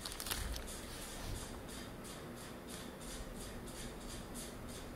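Faint rustling of a small plastic zip bag of picture-hanging hooks held in the hand, a row of soft, short crinkles about three a second.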